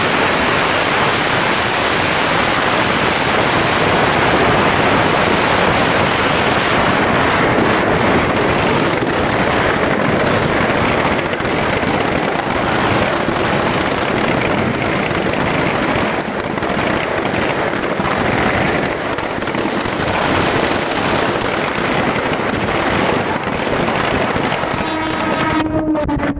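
Firecrackers packed inside a burning Ravana effigy going off in a loud, dense, unbroken crackle of small pops. Near the end a pitched tone joins in.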